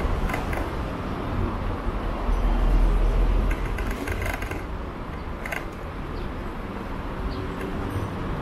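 Steady low rumble of wind on the microphone and road noise while riding along a street, louder for a moment about two to three seconds in, with a few light clicks or rattles around four and five and a half seconds in.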